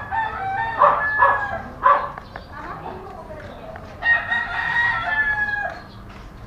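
A rooster crows once, one long call starting about four seconds in, after a few short, sharp calls in the first two seconds.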